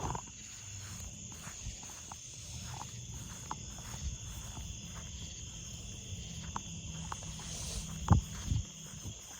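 Footsteps walking steadily, light regular steps about two a second, over a steady high-pitched hum. Two louder thuds come about eight seconds in.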